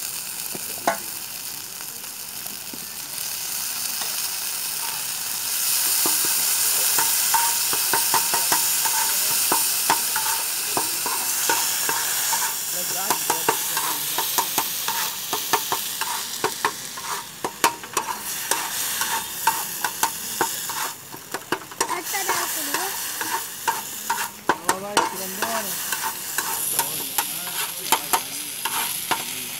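Potato tikki and chaat toppings sizzling on a flat metal griddle (tawa), while a metal spatula chops and scrapes the mash against the griddle. Rapid clinks of the spatula on the metal start about halfway through.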